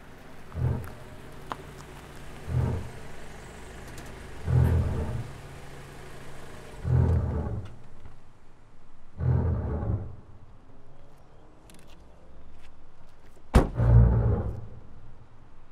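Deep booming beats about every two seconds over a low hum as a car pulls up and stops, with a sharp knock about two seconds before the end.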